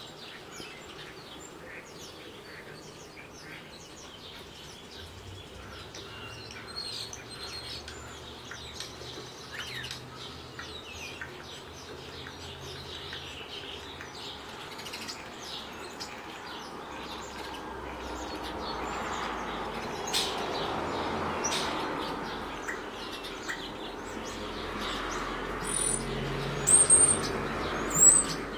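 European starling singing: a rambling run of short chirps, clicks and whistles, with a few loud, sharp high whistles near the end.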